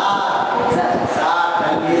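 Several voices singing in chorus, with long held notes.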